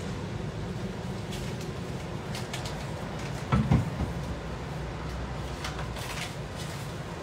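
Things being moved about on a kitchen cupboard shelf: a few light clicks and taps, with one louder knock about three and a half seconds in, over a steady low hum.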